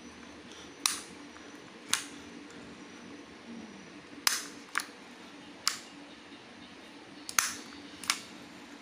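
Zorro Wanu baitcasting reel clicking as it is worked in the hands: about eight sharp single clicks at irregular intervals, two of them close together near the end.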